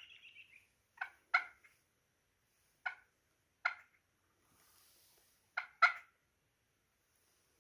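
Wild turkeys calling: about six short, sharp notes spaced a second or so apart, two of them in quick pairs.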